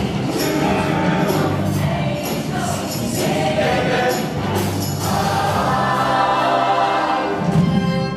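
Show choir singing full-voiced over an instrumental accompaniment with a beat. From about halfway the choir holds long notes, building to a final chord that swells near the end.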